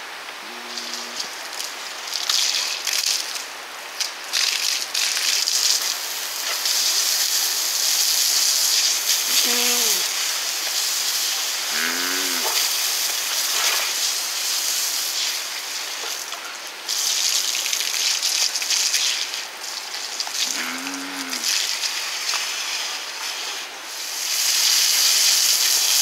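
A steady loud hiss of rushing water runs under a few short moaning calls from seals. Each call rises and then falls in pitch: one about a second in, two close together around ten to twelve seconds, and one a little past twenty seconds.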